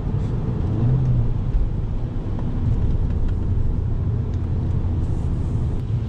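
Inside the cabin of a Fiat Punto with a 1.4-litre naturally aspirated engine, driving at a steady pace: a low, even engine drone and road rumble with a light hiss from the tyres on wet tarmac.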